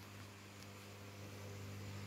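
Faint steady car noise heard from inside the cabin with the windows open: a low engine hum under a hiss of road and air noise, growing slightly louder toward the end.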